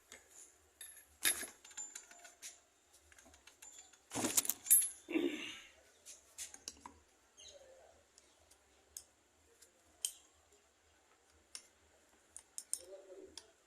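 Scattered metallic clicks and clinks of tools and motor parts being handled while an old electric motor is repaired, with a louder cluster of clatter about four to five seconds in.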